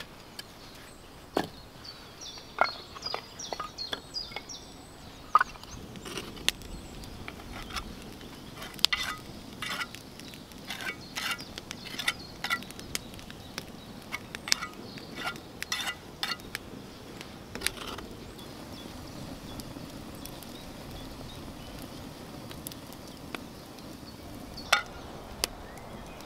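A few sharp axe strikes splitting firewood on a chopping block, with birds calling. Then a wood campfire crackling and popping in irregular small clicks, which thin out in the last few seconds.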